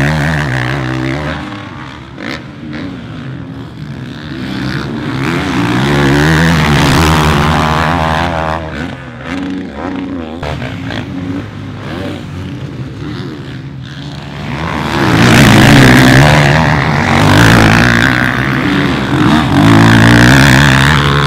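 Motocross bikes on the track, their engines revving up and down through gear changes and jumps. The sound swells twice as bikes come close, once around five to eight seconds in and more strongly from about fifteen seconds on.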